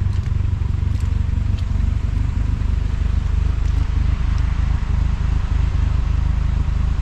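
1970 Volkswagen Bus's air-cooled flat-four engine running with a steady low drone and a loping beat, put down to the freezing cold.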